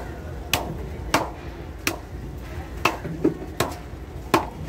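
Heavy fish-cutting knife chopping through a snapper onto a wooden log chopping block: about six sharp chops, irregularly spaced.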